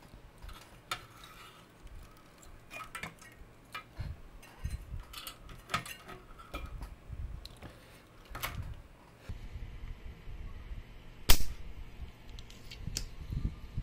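Handling noise from a Technics SU-7 amplifier's circuit boards and metal chassis being lifted and moved by hand: scattered clicks, knocks and low thuds of boards, wires and frame. One sharp, louder click comes about eleven seconds in.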